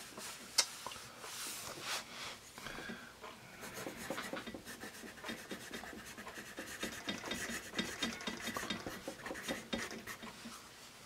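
Paper Mate Mirado Black Warrior #2/HB graphite pencil writing cursive on graph paper: a run of scratchy pencil strokes. Near the start, a hand brushes across the paper and there is a sharp tap.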